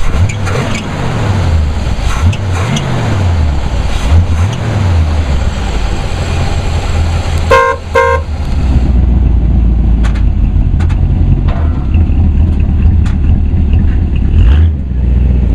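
Small-block Chevrolet 350 V8 revved three times, its pitch rising and falling with each blip. About eight seconds in a car horn gives two short toots, and then the engine runs steadily as the car pulls away.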